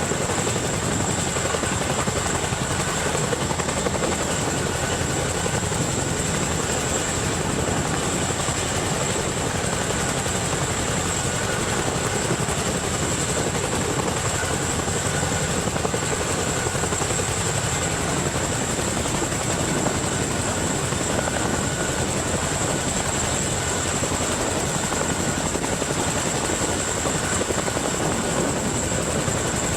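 Helicopter running steadily, its rotor chop mixed with a high steady whine.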